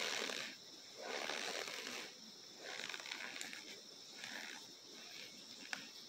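Cornstarch powder and chunks crushed and squeezed by hand close to a microphone: a series of crushing presses about a second each, later ones shorter and fainter, with a single sharp click near the end.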